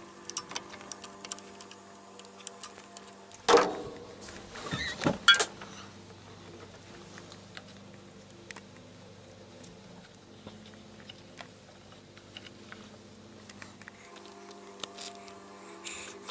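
Hand tools and small metal parts clicking and clinking while a van's carburetor linkages and fittings are disconnected, with two louder clanks about three and a half and five seconds in, over a steady low hum.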